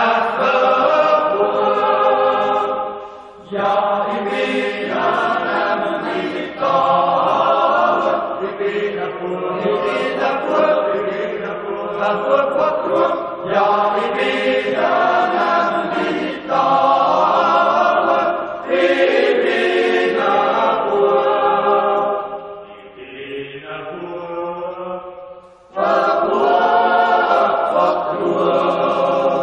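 Background vocal music: voices singing slow, chant-like phrases of long held notes, with a quieter passage a little after the middle and a new phrase starting near the end.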